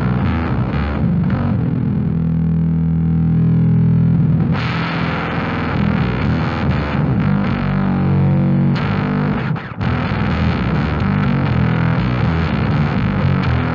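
Bass played through a Fender Blender fuzz pedal: held notes with heavy fuzz distortion. The top end thins out from about two seconds in and comes back suddenly about four and a half seconds in, and the sound briefly drops out just before ten seconds in.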